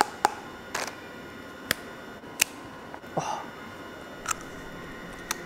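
A crisp stone-baked wheat biscuit (shitou bing) being snapped apart and bitten: about half a dozen sharp, dry cracks spaced a second or so apart.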